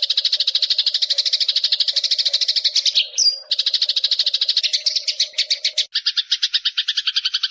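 Eurasian tree sparrow chirping in a fast, unbroken run of about a dozen notes a second, with a short whistle about three seconds in. Near six seconds the chirps change to a coarser, lower run.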